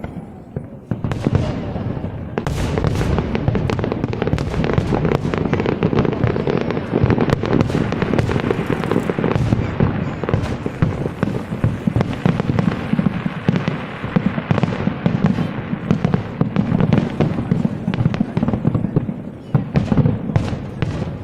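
Fireworks display: a dense, continuous barrage of bangs and crackling bursts.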